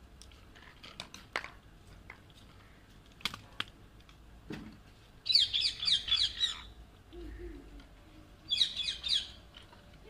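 Alexandrine parakeets giving two bursts of rapid, harsh screeching calls, the first about five seconds in and a shorter one near the end, with a few light clicks and taps before them.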